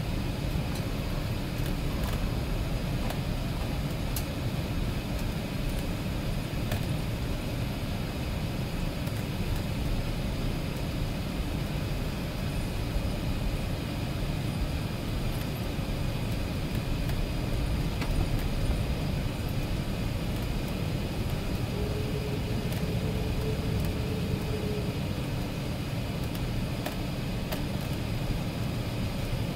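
Steady cabin noise inside an Airbus A380 taxiing: an even low rumble with a broad hiss over it and a few faint clicks.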